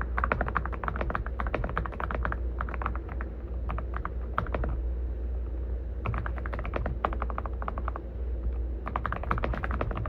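Typing on an Aula F99 mechanical keyboard with Graywood V3 switches: quick runs of key clicks in several bursts with short pauses between them. A steady low hum sits underneath.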